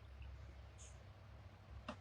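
Near silence: steady low room hum, with a faint tick near the end.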